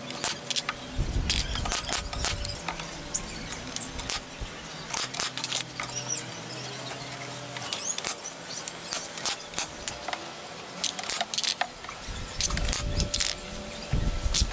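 Cordless drill driving screws into pallet-wood trim boards in short runs, between clicks and knocks of the boards being handled and pressed into place.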